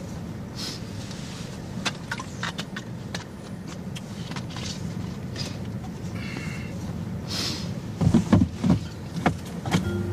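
Car engine running, heard from inside the cabin as a steady low hum, with scattered small clicks. A few louder low thumps come about eight seconds in.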